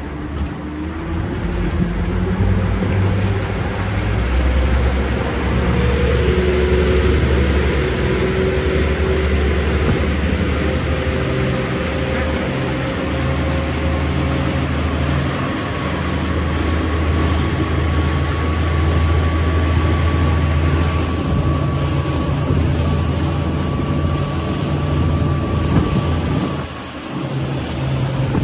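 Motorboat engine running steadily underway, with wind and water noise over it. A whine climbs in pitch over the first few seconds, and the sound dips briefly near the end.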